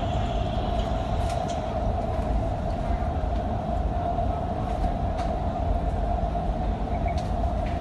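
Doha Metro train running at speed, heard from inside the front car: a steady rumble with a constant hum, and a few light clicks from the track.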